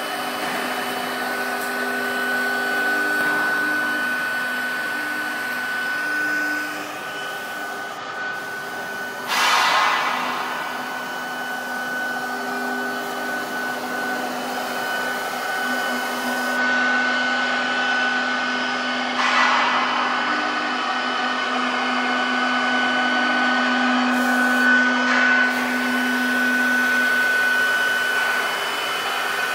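Four-axis CNC router running: a steady motor noise with a constant high whine from the spindle and lower hums that shift in pitch as the axes move, and two brief louder rushes of noise about ten and twenty seconds in.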